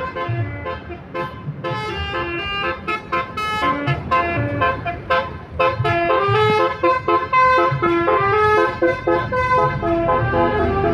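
Bus basuri telolet horn, a multi-tone musical air horn, playing a quick melody, the notes stepping up and down several times a second.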